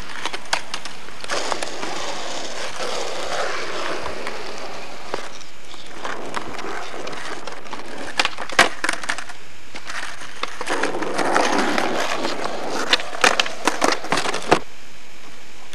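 Skateboard wheels rolling over asphalt, in two stretches. Sharp clacks of the board slapping and landing on the pavement come as tricks are tried, a few in the middle and a quick run of them near the end.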